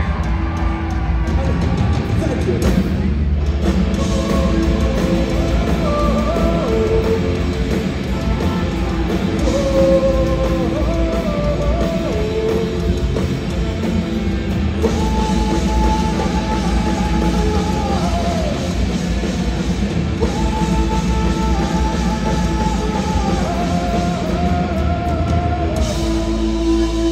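Punk rock band playing live at full volume: drums, guitars and bass under a singer's held, bending vocal line.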